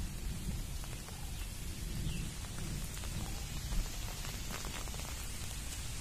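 Wind rumbling on the microphone with a steady hiss, and a few scattered crunches of footsteps on a dry, leaf-strewn dirt path.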